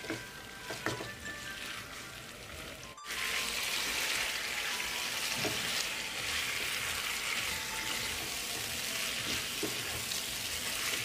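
Chicken pieces sizzling as they fry in oil and spice masala in a nonstick kadai, stirred and turned with a wooden spatula, with occasional spatula knocks against the pan. The sizzle gets clearly louder about three seconds in. The raw chicken is being seared and coated in the masala.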